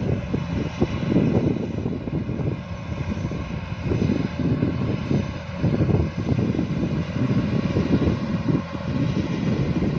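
Kubota DC-105X rice combine harvester running steadily while harvesting, its diesel engine and threshing machinery making a continuous low mechanical rumble, with wind buffeting the microphone.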